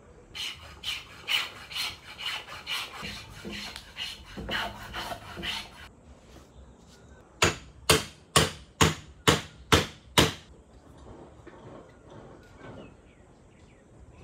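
A face vise on a wooden workbench worked by hand, giving a quick run of rubbing, scraping strokes for about six seconds. Then a wooden mallet strikes seven times, evenly, about half a second apart, knocking a wooden handle into the vise's hub.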